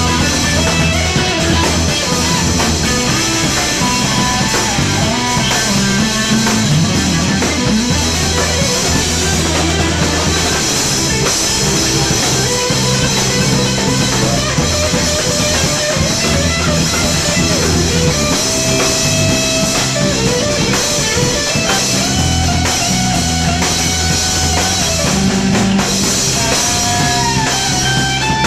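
Live instrumental rock trio: electric guitar playing over electric bass and a drum kit with cymbals, loud and steady with no singing.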